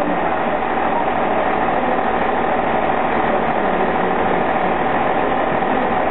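Diesel train engine running steadily at idle, an even hum with a steady tone above it.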